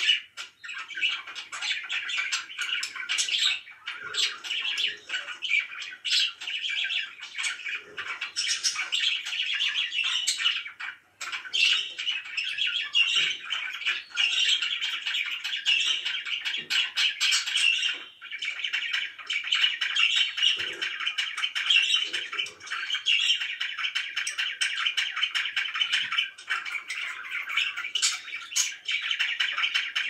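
Several budgerigars chattering and chirping continuously in a busy warble, with occasional short sharp clicks.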